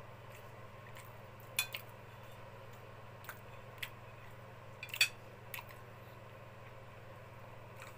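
Cutlery clinking against a plate during a meal: a handful of short, sharp clinks, the loudest about five seconds in, over a faint steady hum.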